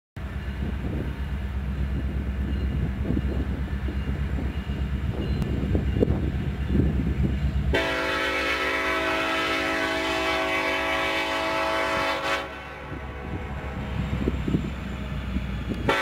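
BNSF SD70ACe locomotive horn sounding one long blast of several tones at once, starting about halfway through and cutting off a few seconds later, as part of a horn show from the approaching train. A low rumble fills the first half, before the horn.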